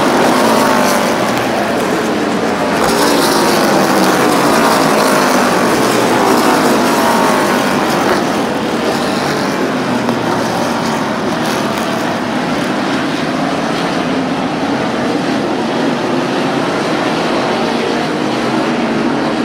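Several NASCAR stock cars' V8 engines running past through a wet corner, their pitch rising and falling as they brake, shift and accelerate. The engines grow fainter after about ten seconds as the pack moves off down the track.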